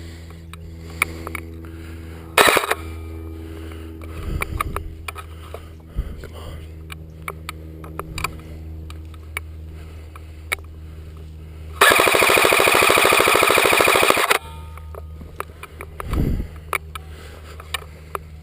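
An airsoft electric rifle firing one full-auto burst of about two and a half seconds, a fast, even mechanical clatter, starting about twelve seconds in. Scattered clicks and knocks come before and after it over a steady low hum.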